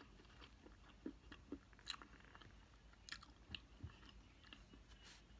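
Faint close-up chewing of a mouthful of chocolate cake and chocolate-chip ice cream, with scattered soft mouth clicks.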